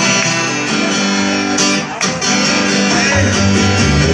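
Acoustic guitar strummed in chords, with a short break about two seconds in and stronger low bass notes near the end.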